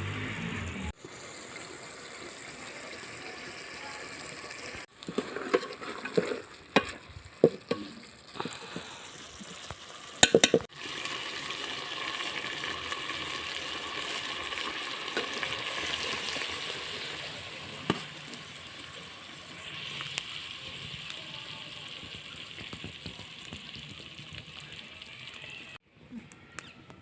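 Potato, cauliflower and peas sizzling in a pan. From about five to eleven seconds in, a spoon clinks and scrapes against the pan as they are stirred. The steady sizzle breaks off abruptly a few times at edits.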